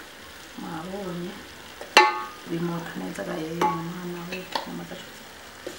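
Wooden spatula stirring meat and onions in an aluminium pot, scraping and knocking against the metal, with one loud ringing clank about two seconds in and fainter knocks after it; the food sizzles as it fries.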